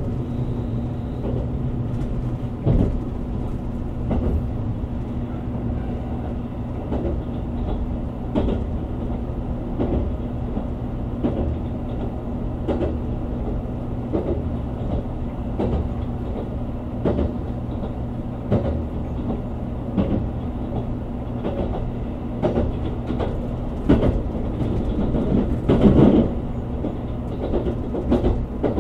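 JR Kyushu 787-series electric limited express running at speed, heard inside the passenger car: a steady low hum with the wheels clacking over rail joints about every second and a half, the loudest clacks near the end.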